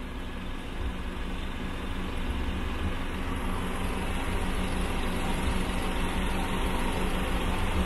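A steady engine hum with a low rumble, running without a break and growing slightly louder.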